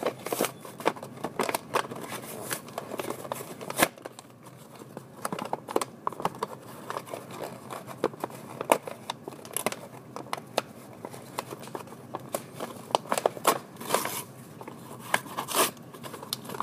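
Paper and toy packaging handled close to the microphone: irregular crinkling, tearing and sharp clicks.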